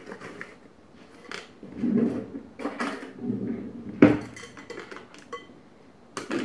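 Plastic measuring spoons clacking against each other and a ceramic bowl, with rustling of a paper sugar bag as sugar is scooped out. A sharp clack about four seconds in is the loudest sound.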